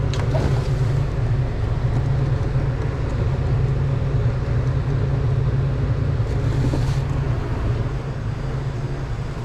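Steady low machine hum with a constant rushing noise, and a brief rustle about six and a half seconds in.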